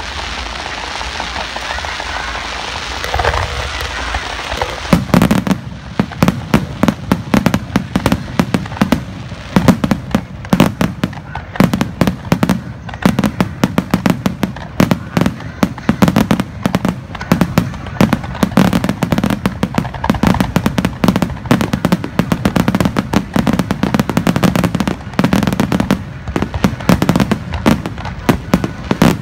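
A fireworks barrage: after about five seconds of steady noise, a rapid, unbroken stream of sharp bangs and cracks from shells bursting overhead, with deep booms underneath.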